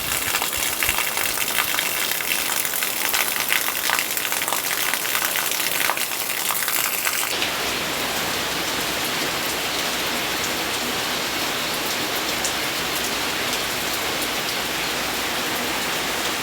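Heavy rain falling, with many small drop-strikes crackling on nearby surfaces. About seven seconds in the sound changes abruptly to a smoother, steady rain hiss.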